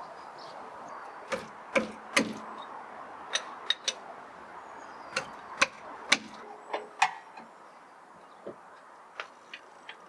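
Irregular sharp clicks and knocks, about a dozen, spaced unevenly over a faint steady hiss: hand tools and parts being handled while a road wheel is refitted to the car.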